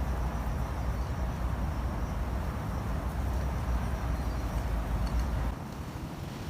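Wind buffeting the microphone in gusty pre-storm weather: a rough low rumble over a steady outdoor hiss, which drops away abruptly near the end.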